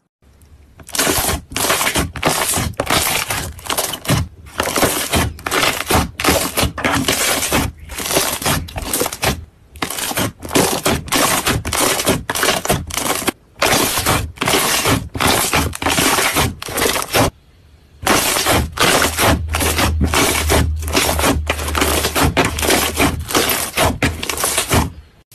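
Slime being squeezed and pressed by hand, giving a loud, dense run of crackles and pops, broken by a few short pauses.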